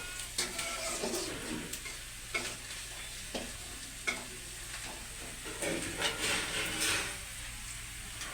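Chicken curry frying in a pan, with a spatula stirring and scraping against the pan. There is a steady sizzle and several sharp scrapes and knocks.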